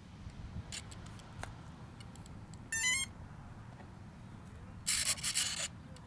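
A quick rising run of electronic beeps about three seconds in, then a brief loud hiss near the end, over a low steady background rumble.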